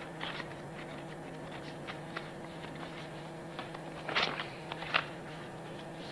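Quiet meeting-room tone: a steady low hum with scattered small clicks and rustles, and a louder rustle and a sharp tap about four to five seconds in.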